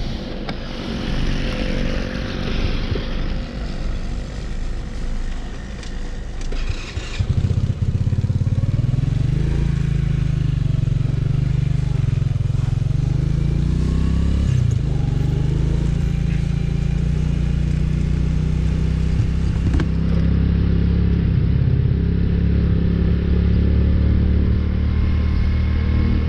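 Motorcycle engine running while being ridden. A rushing noise fills the first seconds; about seven seconds in the engine note becomes louder and steady, rising and falling a little with changes in speed.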